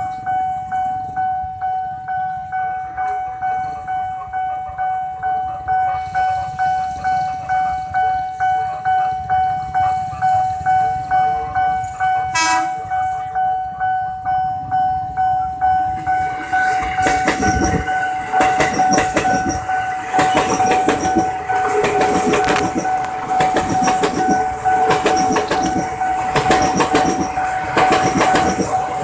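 A steady ringing tone pulses in even strokes, about one and a half a second, like a railway level-crossing warning bell. A little over halfway through, a train arrives and passes close by, its wheels clattering rhythmically over the rails and growing louder toward the end.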